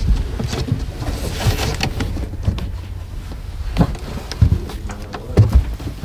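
A person crawling through loose-fill attic insulation over wooden joists: rustling and scuffing, with irregular knocks and several louder thumps in the second half.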